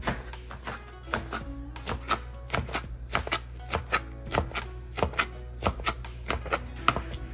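Knife chopping food on a cutting board in a steady rhythm, about three strokes a second, over background music.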